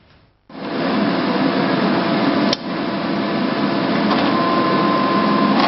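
Laboratory machinery running: a loud, steady rushing noise that starts after a brief silence. A sharp click comes about two and a half seconds in, and a steady high tone sounds for the last second and a half.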